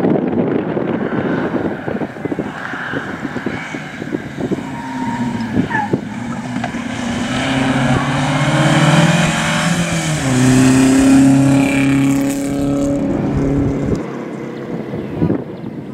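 Historic rally car's engine revving hard under acceleration as the car comes up the stage and passes close by. The pitch climbs, drops sharply about ten seconds in, climbs again, and the engine is loudest from about eight to thirteen seconds in before fading away.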